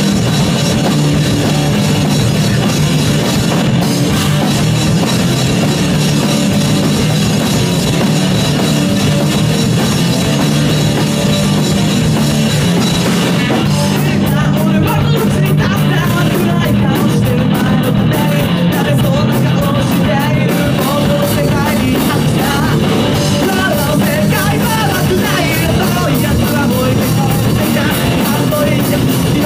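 A live rock band plays loud, fast hard rock: distorted electric guitar, electric bass and a drum kit, with a lead vocalist singing into a handheld mic. Around the middle the cymbals drop back and the voice stands out, then the cymbals come back in about three quarters of the way through.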